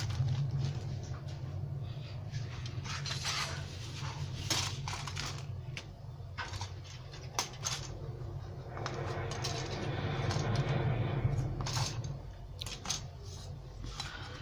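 Grey plastic sprues of a 1/72 model kit being handled on a cutting mat: scattered light clicks and taps, with a stretch of plastic-bag rustling, over a steady low hum.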